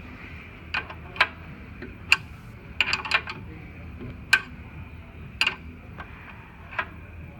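Irregular sharp clicks and taps from a spanner tightening the bandsaw table's locking bolts, about ten in all, with a quick cluster about three seconds in.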